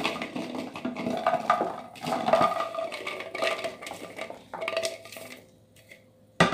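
Peeled garlic cloves clattering and tumbling into a plastic storage box, in dense irregular knocks that die away about five seconds in. A single sharp knock comes at the very end.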